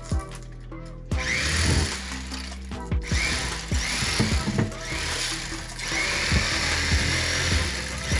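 Background music with a steady beat; about a second in, a harsh buzzing like a small power tool starts under it and carries on in surges.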